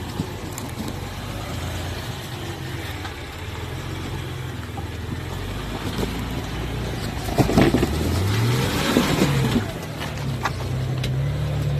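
Jeep Wrangler engine running as it crawls over rock ledges, revving up briefly about two-thirds of the way through, with knocks and scrapes of the tyres on rock during the rev.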